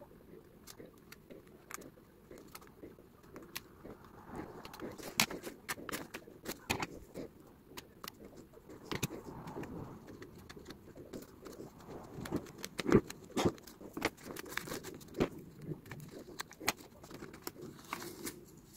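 Faint scattered clicks and rustling: small metal scissors and tweezers snipping and picking out the stitching thread of a label sewn into a pleated paper blind.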